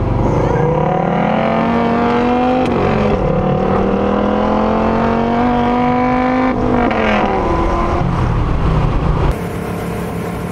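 Car engine at full throttle, heard from inside the cabin, climbing steadily in revs with two upshifts, about 3 and 6.5 seconds in, each dropping the pitch before it climbs again. Near the end the sound cuts to a quieter, steady engine note.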